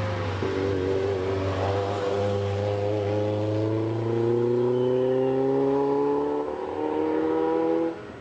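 Group A hill-climb race car's engine at full throttle accelerating uphill, its pitch climbing steadily through each gear, with quick upshifts just after the start and about six and a half seconds in. The sound cuts off abruptly near the end.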